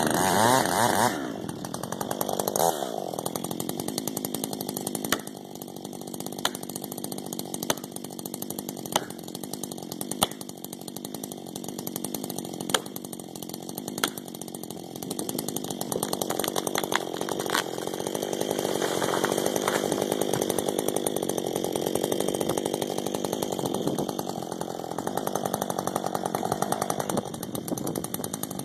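Husqvarna 562 XP two-stroke chainsaw running at varying speed while felling a dead ash: revved hard at first, then running lower with sharp clicks every second or two, then loud and steady again from about halfway through.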